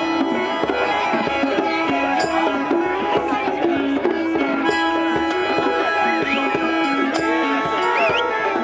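Acoustic music played live: hand drums keep a steady beat under a repeating melodic phrase on pitched instruments, with a couple of short rising high tones in the second half.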